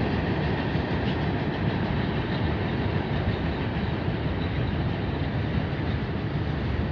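Freight train cars rolling past with a steady rumble of steel wheels on the rails.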